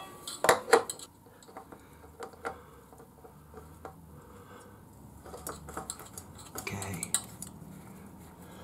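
A HiFlo HF160 oil filter being spun by hand onto its threaded mount on a BMW S1000R engine: two sharp metallic clicks about half a second in, then faint light ticks and rubbing as the can turns.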